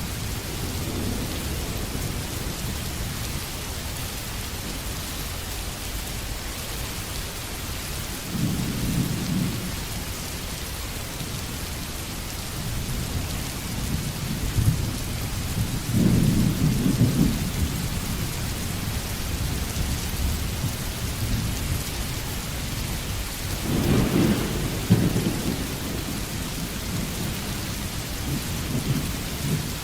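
A steady hiss like rain, with a low rumble that swells three times, about every eight seconds.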